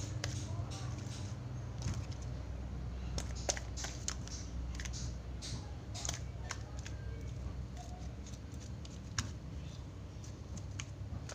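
Homemade white slime being kneaded and stretched by hand, giving irregular sticky clicks and pops, over a steady low hum.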